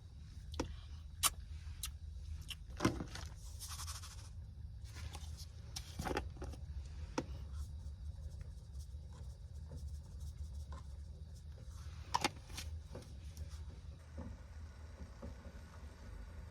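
Scattered clicks, knocks and scrapes of camp cooking gear being handled, over a steady low rumble.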